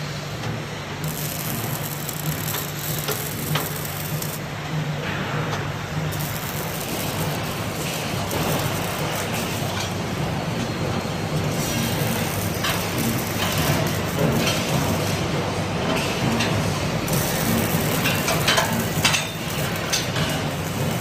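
Robotic arc welding: the welding arc sizzles and crackles with sharp spatter pops. It stops and starts several times between welds, over a steady low machinery hum.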